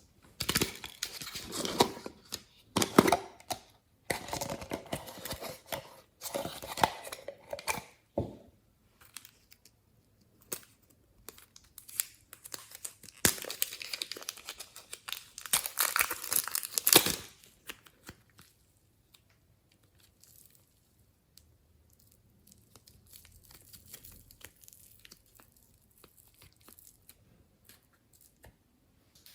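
Glossy slime being kneaded, stretched and pulled apart by hand, with other materials being mixed in, making sticky tearing and crinkling noises. The sound comes in bursts of a second or two, busiest in the first half and becoming faint, scattered handling after about eighteen seconds.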